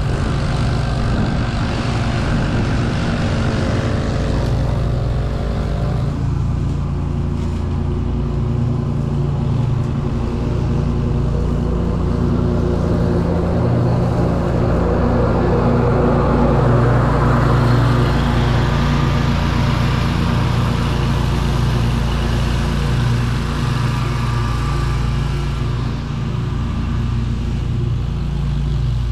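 Small gasoline lawn-equipment engines running steadily: a continuous engine drone, with a hissing noise that swells for several seconds in the middle.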